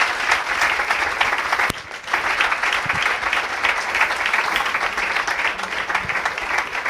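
Audience applauding, the dense clapping of many hands, dipping briefly about two seconds in.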